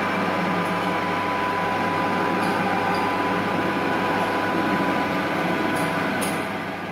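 Several conventional metal lathes running together in a machine shop: a steady mechanical hum with gear whine, easing off slightly near the end.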